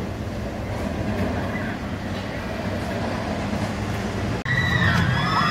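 Steel roller coaster train rumbling along its track. About four seconds in the sound cuts to a louder rumble with wavering high tones.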